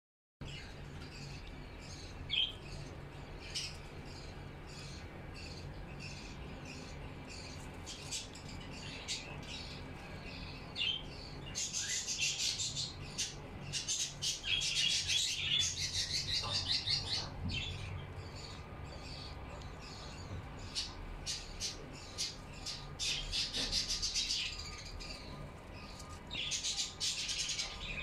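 A budgerigar warbling and chirping: scattered short chirps at first, then bursts of fast chattering warble, the longest about halfway through and shorter ones near the end.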